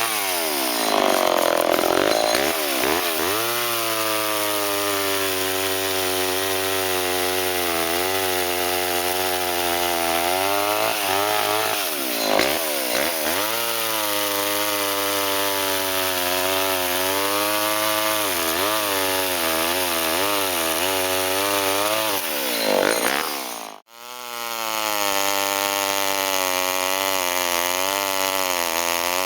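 Vintage Homelite two-stroke chainsaw running and cutting wood, its engine pitch sagging and recovering several times under load. The sound cuts out for an instant near the end, then the saw carries on.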